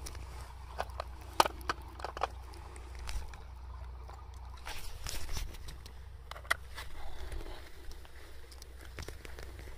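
A cat crunching dry kibble from a plastic bowl: a scatter of sharp crunches and clicks, bunched in the first couple of seconds, with one more about six and a half seconds in.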